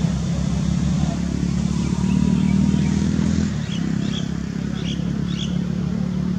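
A motor running with a steady low hum whose pitch rises and falls a little, with a few short bird chirps midway.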